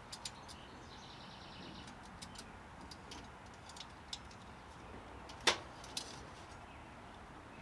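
Light scattered clicks and taps of a car's oil dipstick being handled in its tube while the oil level is checked, with a sharper metallic click about five and a half seconds in and another just after. The oil reads low.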